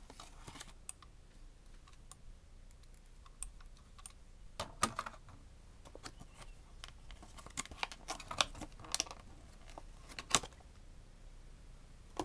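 Clear plastic blister packaging crackling and clicking as it is handled and pulled apart by hand. The clicks are light and irregular, with louder clusters about five seconds in and again around eight to nine seconds in.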